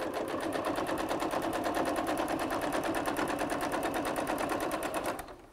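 Domestic electric sewing machine running a line of stitches along a folded fabric hem, a fast, even rhythm of needle strokes at steady speed that stops near the end.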